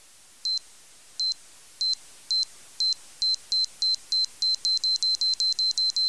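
A high, single-pitched electronic beep repeats, slowly at first and then faster and faster, until it comes several times a second.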